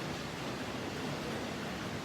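Steady, even background hiss with no distinct sounds.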